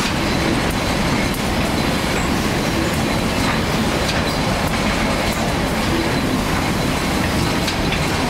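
Automatic packing machine and its conveyors running in a sugar factory: a loud, steady mechanical din with scattered clicks and clatter.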